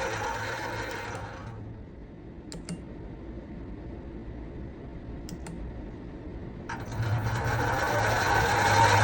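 LittleMachineShop HiTorque 7500 bench lathe's variable-speed spindle motor running, then winding down to a stop about a second and a half in. A few light clicks follow, then around seven seconds in the spindle starts again and builds up in level.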